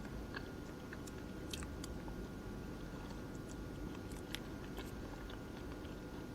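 A person chewing fast food, with small scattered crunches and clicks, over the steady low hum of a small electric fan.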